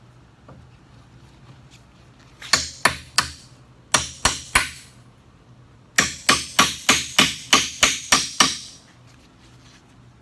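Hammer striking a small crowbar to drive its tip under a pallet board so the board can be pried loose: three blows, a pause, three more, then a quick run of about ten.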